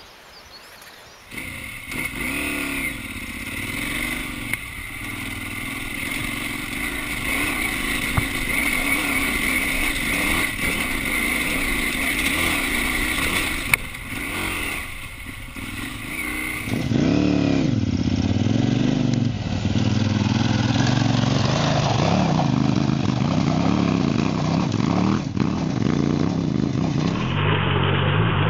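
KTM V-twin adventure motorcycle engine being ridden off-road, revving up and down repeatedly. About 17 s in, an edit switches to a deeper, louder engine note.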